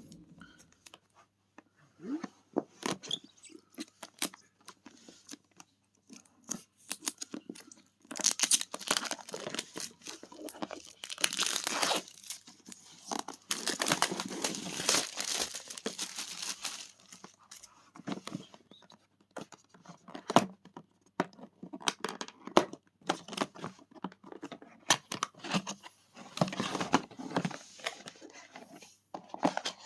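Hand-unboxing sounds from a hair dryer's packaging: wrapping or packing material tearing and crinkling in long stretches, with scattered clicks and knocks of the box and parts being handled.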